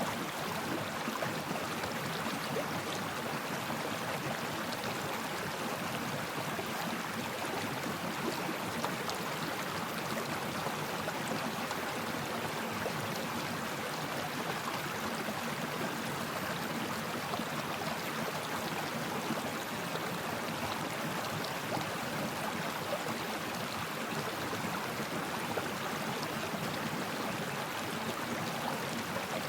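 Stream water flowing over rocks, a steady babbling rush with no pauses or changes.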